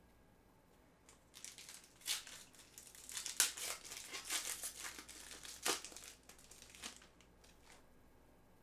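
Foil trading-card pack wrapper being torn open and crinkled by hand: a run of sharp crackles that starts about a second in and dies away near the end.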